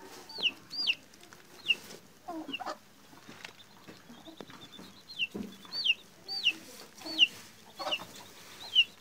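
Two-week-old chick peeping as it is handled: about ten short, high cheeps, each falling in pitch, with a lull of a couple of seconds near the middle.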